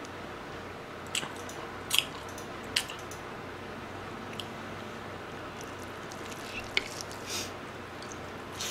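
Wet mouth sounds of a person chewing sauced fried chicken: a handful of short, sharp smacks and clicks spaced a second or so apart over quiet room tone.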